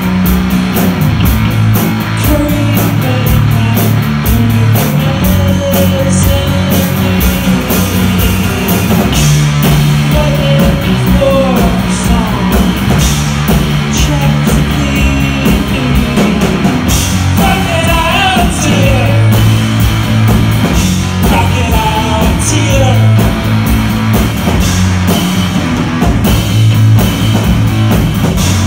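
A rock band playing live: electric guitar, bass guitar and drum kit in a full, continuous rock groove.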